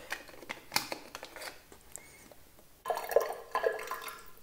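Light plastic clicks and knocks as a small toy water pistol is handled. About three seconds in, tap water runs and splashes into the pistol's filler hole as it is filled at a bathroom basin.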